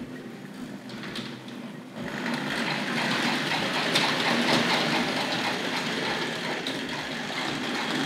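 Tri-ang Hornby TC Pacific 00-scale model steam locomotive moving off under power, its electric motor running and its chuff-chuff sound box giving a steady rhythmic chuffing, with the wheels clicking along the track. The sound grows much louder about two seconds in as the train picks up speed and comes closer.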